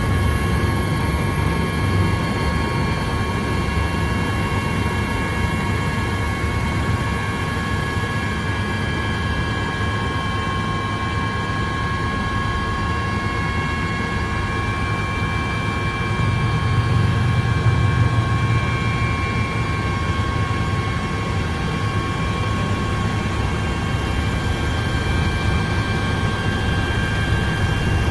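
Helicopter turbine and rotor noise heard from inside the cabin: a steady drone with a few steady high whining tones, growing a little louder for a few seconds past the middle as the helicopter lifts off and climbs.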